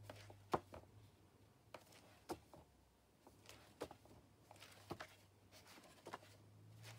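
Pages of a large paperback book being turned by hand: quiet, scattered paper taps and rustles, about ten in all, over a faint steady low hum.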